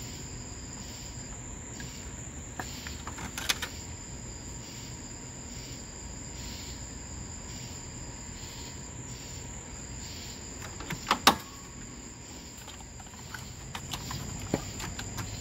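Crickets chirping steadily, with a few sharp plastic clicks as a spark plug wire is fitted into its plastic routing channel and pushed onto the ignition coil pack. The loudest clicks come as a quick cluster about eleven seconds in.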